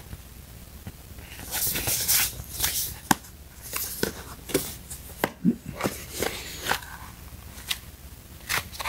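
Cardboard and paper packaging being handled and opened: a string of short rustles, scrapes and light clicks as the box is turned over and its inner tray uncovered.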